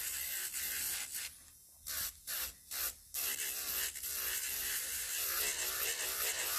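Electric nail drill with a medium-grit sanding band running against an acrylic nail at the cuticle area to blend it: a steady high hiss over a faint motor whine. It stops and starts several times about two to three seconds in, then runs on steadily.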